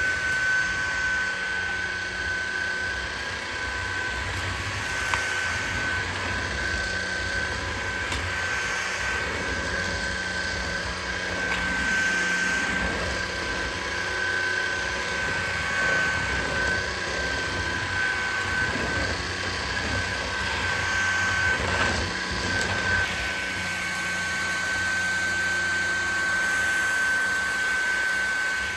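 Levoit LVAC-200 cordless stick vacuum running steadily while picking up sand from a floor, a high motor whine over a steady rush of air.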